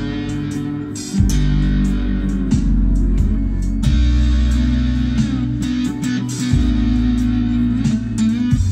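Electric slide guitar: a Telecaster-style electric guitar played with a slide, its notes gliding in pitch, over a backing track with a steady bass line.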